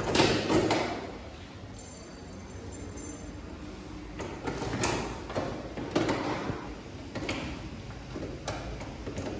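Knocks, clatter and rattles of an aluminium door and its lock hardware being handled: a loud cluster in the first second, then several separate bursts further on.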